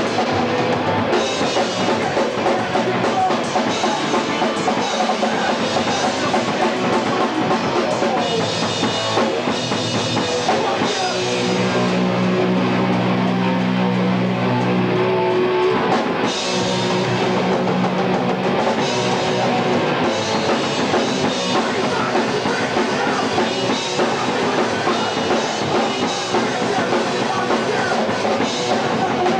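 Hardcore punk band playing live, with pounding drums and distorted guitars and bass, on a home VHS recording. A couple of held low chords ring out about halfway through.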